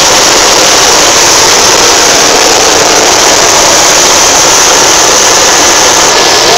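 Small three-seat helicopter in flight, heard from inside its cabin: a loud, steady roar of engine, rotor and rushing air, recorded on a mobile phone.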